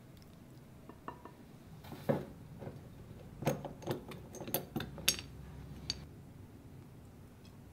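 Glass swing-top bottle and its metal wire clasp being handled and opened: a run of sharp glass-and-metal clinks and clicks, sparse at first, then a quick cluster in the second half.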